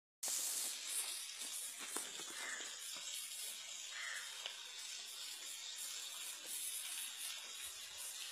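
Steady splashing hiss of water falling from a rock overhang onto stones, with a few faint clicks.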